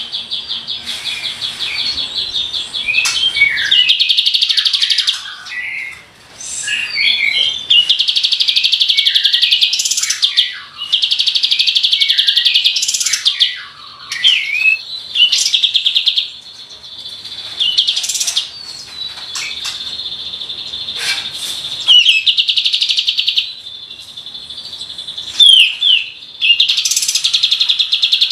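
Kapas tembak singing loudly in a long sequence of rapid rolling trills, each lasting two to three seconds, alternating with short, varied, sweeping chirps.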